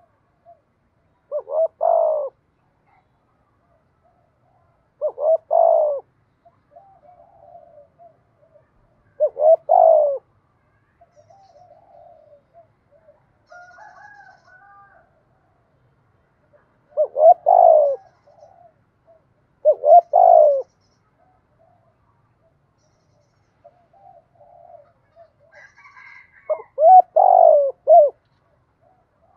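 Spotted dove cooing: six loud, multi-note coo phrases a few seconds apart, the last one the longest, with softer, higher calls in between.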